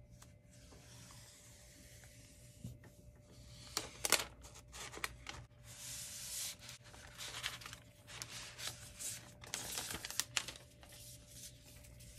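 Packaging rustling and crinkling as a new iPad Air is lifted out of its box and its wrapping handled, with a few sharper tearing sounds about four seconds in and again near ten seconds.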